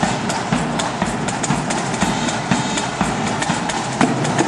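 Marching band drum section playing: snare drums in rapid strokes over regular bass drum beats, with a steady tone underneath.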